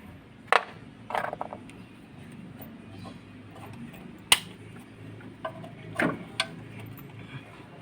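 Metal hand tools and engine parts clinking and clanking in a handful of sharp knocks during engine disassembly, the loudest about four seconds in, over a faint steady low hum.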